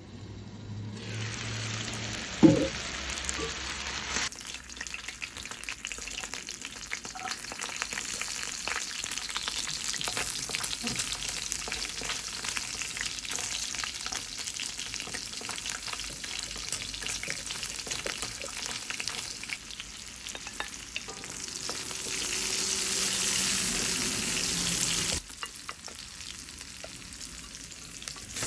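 Food frying in oil in a pan: a steady sizzle full of small crackles and pops, with a single sharp knock about two and a half seconds in. The sizzle changes level abruptly a couple of times and grows louder for a few seconds near the end.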